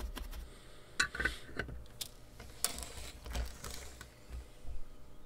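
Scattered clicks and light knocks as a small circuit board in a plastic holder is handled and turned round on the workbench.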